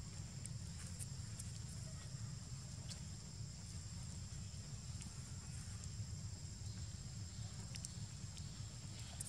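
Outdoor forest ambience: a steady high-pitched insect drone over a constant low rumble, with a few faint ticks and rustles of dry leaves as a macaque forages in the leaf litter.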